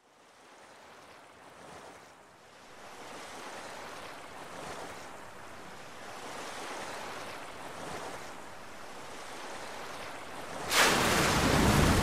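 Rushing noise of wind and sea waves fading in from silence and slowly swelling. Near the end a much louder sound cuts in suddenly.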